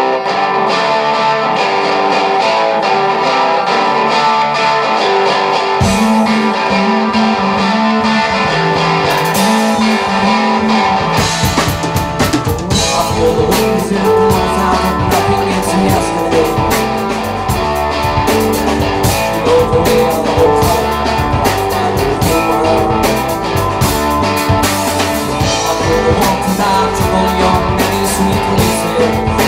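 Live rock band playing a song's intro. Electric guitar plays alone at first, a bass line joins about six seconds in, and the drum kit with cymbals comes in about eleven seconds in.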